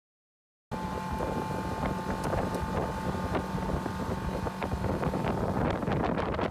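Outboard motor of an inflatable boat running steadily at speed, with a low hum and a higher whine, starting abruptly about a second in. Wind buffets the microphone, more choppily near the end.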